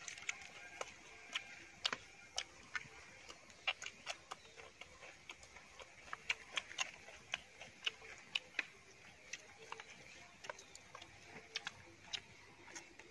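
People eating whole roasted chicken: irregular sharp clicks and crunches of chewing and pulling the meat apart by hand, over a faint steady high background drone.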